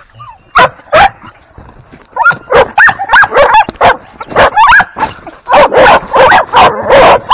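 Several American Bully puppies barking from a wire pen: two single barks, then from about two seconds in a fast run of barks, one close after another.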